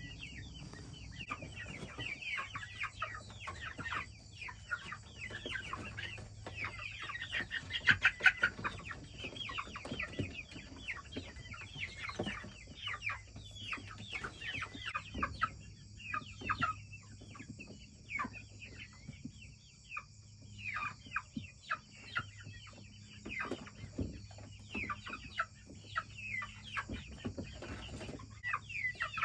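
Young chickens, about two and a half months old, clucking and peeping softly in many short calls as they settle in the coop to roost for the night.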